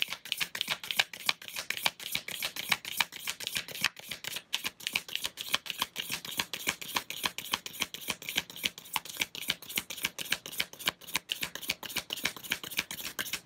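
A deck of tarot cards being shuffled by hand: a steady run of quick card clicks and riffles, several a second.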